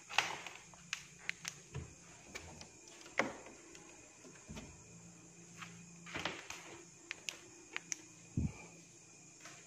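About a dozen light, irregular clicks and knocks, the sharpest right at the start and another about three seconds in, with a duller thump near the end, over a faint steady high hum.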